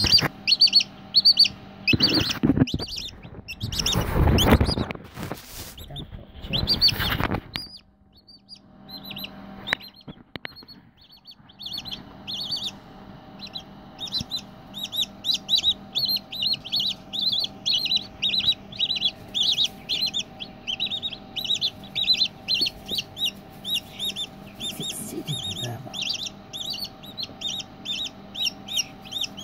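Newly hatched silkie chick peeping, short high peeps repeated rapidly, about three a second, over a faint steady hum. Loud rustling and bumping covers the peeps for a few seconds early on, then they carry on steadily.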